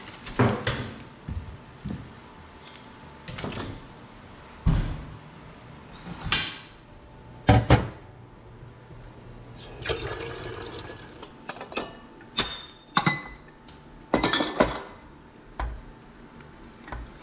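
Kitchen handling sounds: a string of separate knocks and clunks as a wood cookstove is stoked and an enamel stovetop percolator is handled. About ten seconds in, a tap runs into the pot for a second or so.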